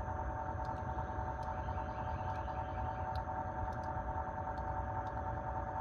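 Mini-split heat pump outdoor unit running after a compressor repair and refrigerant top-up: a steady hum with several whining tones over a low rumble.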